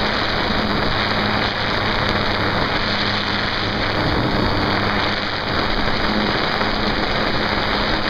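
RC airplane in flight, heard from a camera taped to its airframe: a steady rush of wind over the microphone, with a faint steady hum from the motor and propeller underneath.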